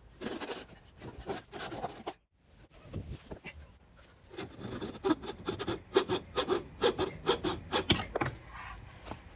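A blade being worked back and forth through a small piece of wood in repeated rasping strokes. They stop briefly about two seconds in, then come faster and harder, about two or three a second, until the piece is nearly cut through.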